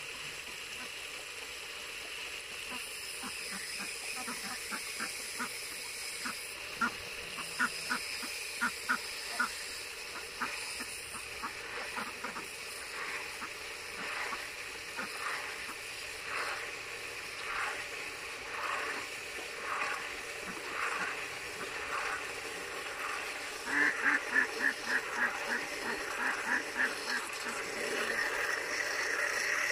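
Domestic ducks quacking in runs of short repeated calls, several a second, with the loudest quick burst of quacks near the end.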